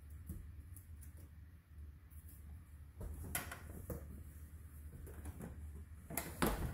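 Scattered knocks, clicks and rustles of hands working with tape and cable in a small closet, over a steady low hum, with a cluster of knocks near the end.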